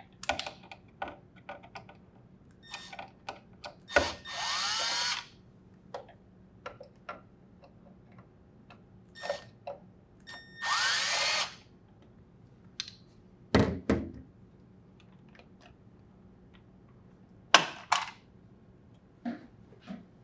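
Cordless drill driver spinning twice in short runs of about a second each, a few seconds apart, backing out the two Phillips screws that hold a refrigerator's top hinge cover. Light clicks and knocks of handling come between the runs, with a couple of louder knocks later on as the cover comes off.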